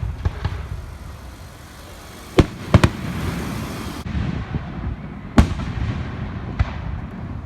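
Fireworks going off: sharp bangs at uneven intervals, the loudest a quick cluster about two and a half seconds in and another single bang past five seconds, with rumbling and crackle in between.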